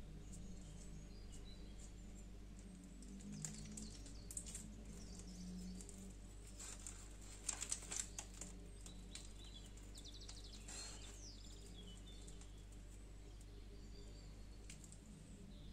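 Soft rustling and a few clicks from handling a folded pancake and squeezing a piping bag of cream into it, over a steady low hum. There is a short cluster of sharper clicks about halfway through and a few faint high chirps later on.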